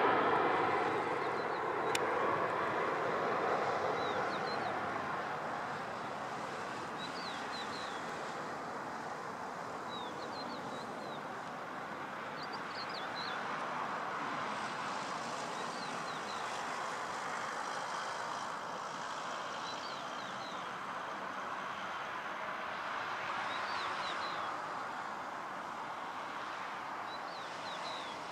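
Airbus A340-300 jet engines, loud at first and fading over the first few seconds as the airliner passes low on approach, then a steady distant rush as it descends to the runway. A small bird gives short high chirps every couple of seconds.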